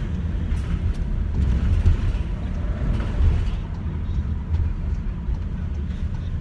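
Van driving, heard from inside the cabin: a steady low rumble of engine and road noise.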